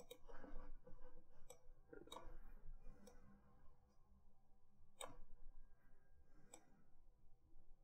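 Faint computer mouse clicks, about half a dozen at irregular intervals, the sharpest about five seconds in, over a low steady room hum.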